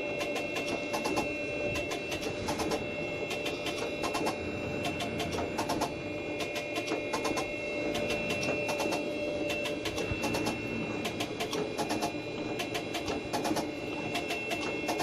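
Machine tool running while a cutter slots splines into a metal part: a steady whine with rapid, regular clicking of the cutting strokes.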